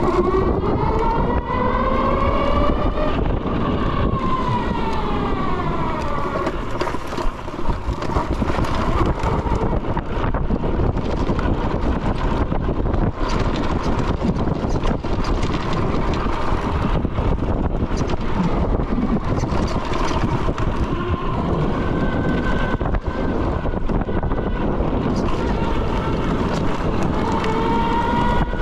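Ubco 2x2's two 1,000 W hub motors, one in each wheel, whining under way, the pitch rising and falling with speed over steady wind noise. The whine climbs in the first few seconds, falls away around the sixth second and climbs again near the end.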